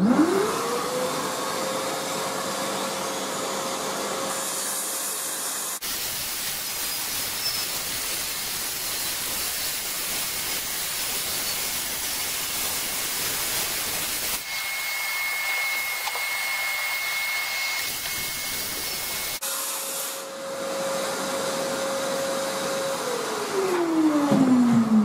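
Circular saw with a dust extractor attached, cutting back the edge of the floor decking. The motor spins up to a steady whine at the start, runs through the cut, and winds down with a falling whine near the end.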